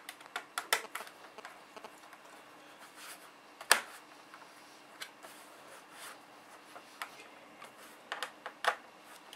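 Scattered clicks and taps of plastic as an HP G50 laptop's hard drive access cover is handled and fitted onto the laptop's underside, with one sharper, louder click a little over a third of the way in and a quick run of clicks near the end.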